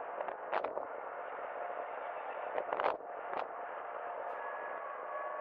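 Distant jet engine noise, a steady rushing, from a jet on its takeoff roll, with a few brief clicks about half a second in and again around the middle.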